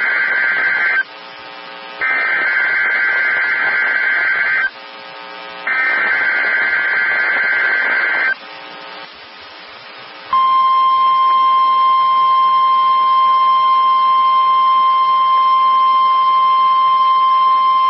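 Emergency Alert System (SAME) header on NOAA Weather Radio: three bursts of shrill data tones, each a couple of seconds long with short gaps between. About ten seconds in, the steady single-pitch Weather Radio warning alarm tone begins and holds. Together they open a practice tornado warning broadcast.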